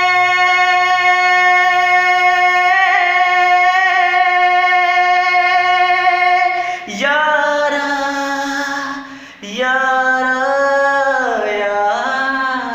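A single pitched tone, rich in overtones, held very steady for about seven seconds. It then drops lower and goes on in bending, sliding notes, with a brief break part way through.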